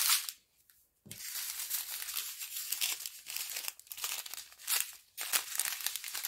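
Plastic zip bags of diamond-painting drills crinkling and rustling as they are handled and picked up. A short lull comes just before the first second, then the crinkling runs on with louder bursts near the end.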